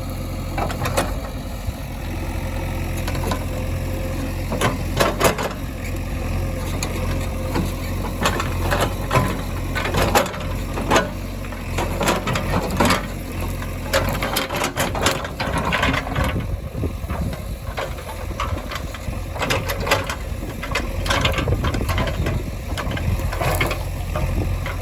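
Heavy diesel machinery running steadily at a low rumble, with repeated short clanks and knocks scattered throughout.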